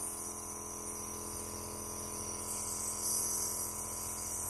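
Home nebulizer running: a steady electric buzz with a hiss of air, the hiss growing stronger about halfway through.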